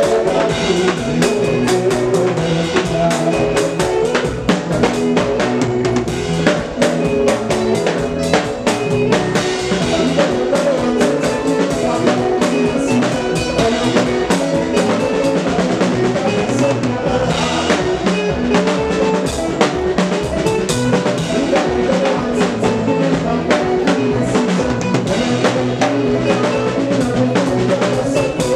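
Live band music: a drum kit playing a busy beat, with bass guitar and keyboard underneath.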